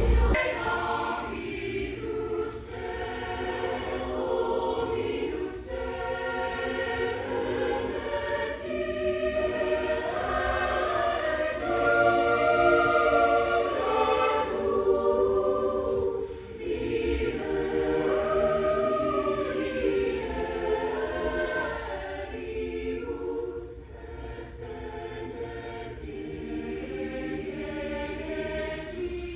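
A school choir singing a holiday song in parts, the voices swelling and easing, with a brief lull about 16 seconds in and softer singing near the end.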